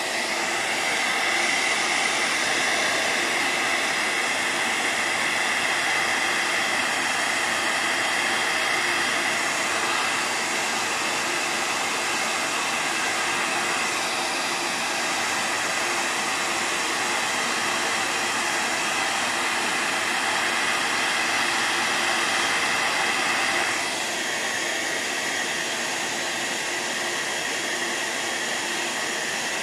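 Hair dryer blowing steadily to dry a layer of paint; its sound drops a little in level and changes tone about 24 seconds in.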